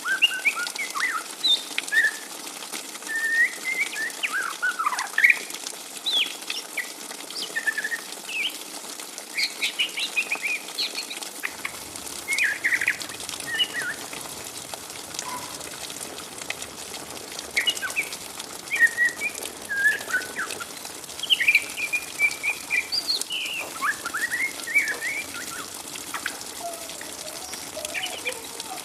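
Juvenile white-rumped shama ('trotol') chattering in its young 'ngriwik' twitter: quick clusters of short, scratchy chirps and slurred notes with brief pauses between them, over a faint steady hiss.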